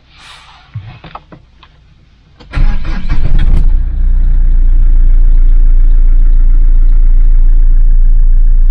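A few light clicks, then the Mahindra Scorpio's engine cranks on the starter about two and a half seconds in. It catches within about a second and settles into a loud, steady idle.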